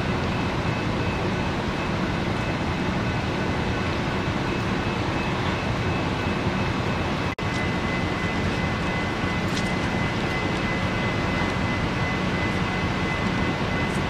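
Steady, even rumble of heavy vehicle engines and a freight train at a rail crossing, with a faint steady high tone. The sound cuts out for a moment about seven seconds in.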